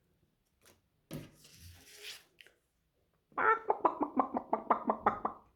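A rapid run of about a dozen hen-like clucks, about five a second, after a soft rustle about a second in.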